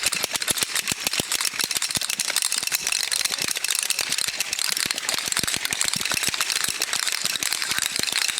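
Many wooden Easter clappers and ratchets clattering together in a dense, unbroken rapid clacking: the Holy Week call to church that stands in for the silent church bells.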